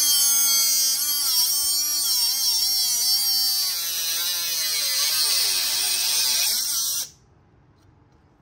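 Milwaukee M12 FUEL cordless cut-off tool cutting through a metal bracket with its abrasive wheel: a high motor whine whose pitch dips and rises as the wheel bites into the metal. The motor stops suddenly about seven seconds in.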